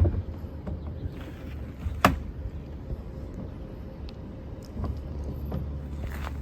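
Plastic door-panel retaining clips snapping loose as the trim panel is pried off: a sharp snap at the start, a louder one about two seconds in, then a few lighter clicks, over a low steady hum.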